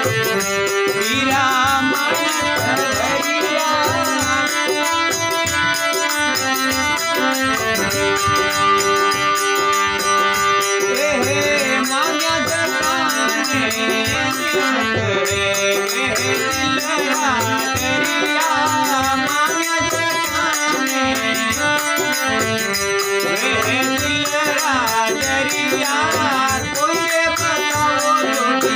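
Instrumental interlude of a Rajasthani folk bhajan: a melody instrument playing a winding tune over a steady, repeating percussion beat.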